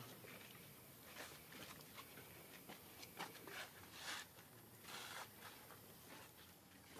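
Faint scattered rustling and scuffing with a few soft clicks, the most noticeable about one, three, four and five seconds in.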